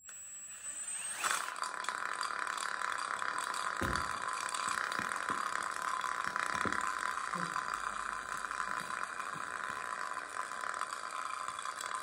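Table saw running steadily, coming up to full sound about a second in, with a few low knocks partway through.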